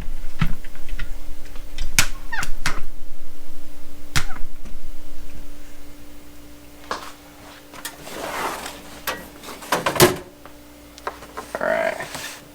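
Handling noise of a camera tripod being picked up and moved: a quick run of knocks and clicks for about six seconds, then quieter rustling with one sharp knock about ten seconds in.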